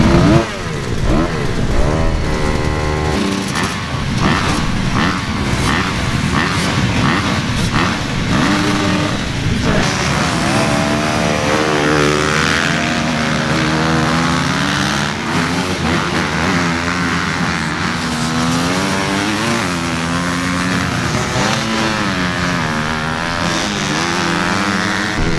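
A pack of motocross bike engines revving together on the start line, many overlapping pitches rising and falling as the riders blip their throttles. Near the end the field pulls away from the gate.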